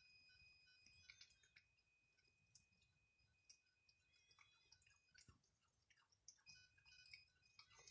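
Faint, scattered soft clicks and smacks of a cat chewing pieces of meat off a plate, in an otherwise near-silent room.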